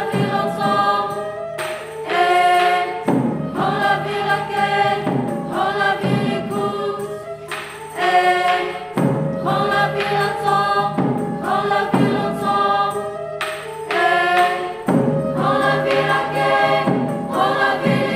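Mixed student choir singing together, in short phrases that start afresh every one to two seconds.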